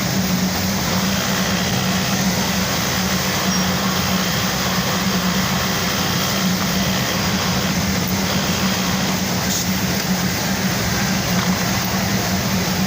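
Industrial sewing machines running: a steady mechanical din with a constant low hum and no pauses.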